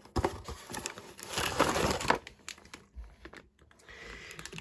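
Packaging being opened and handled: crinkling and rustling with scattered light clicks and taps, loudest for about a second starting a little over a second in.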